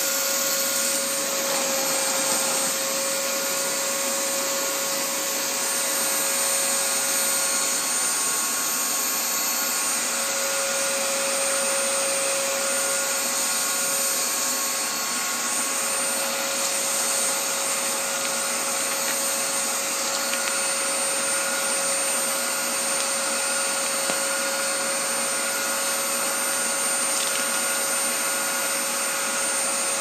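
VonHaus 1200W cyclonic bagless cylinder vacuum cleaner running steadily: an even rush of airflow with a steady motor whine.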